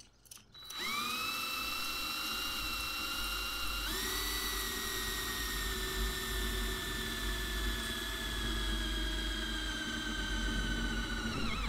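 DeWalt 18V cordless drill driving a 20 mm hole saw into the van's metal roof: a steady motor whine that starts about a second in, steps up in pitch about four seconds in, then slowly falls until it stops near the end.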